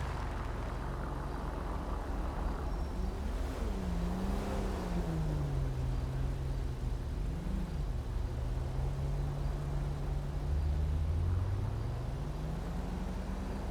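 Twin-turbocharged LS7 V8 of a Mazzanti Evantra Millecavalli running at low revs after slowing down, with a few light blips of the throttle. The pitch dips about ten seconds in, then climbs again near the end.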